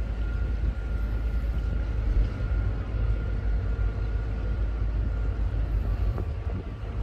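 Steady low rumble of a river cruise boat's engine running, with a faint constant hum above it.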